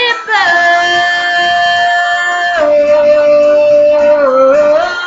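A woman singing, holding long notes: one note for about two seconds, then a step down to a slightly lower note held for about two more seconds, which dips briefly and slides up near the end.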